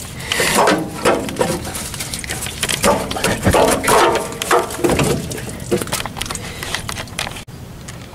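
A man grunting and muttering with effort while forcing a tight oil filter on by hand. The sound cuts off abruptly near the end.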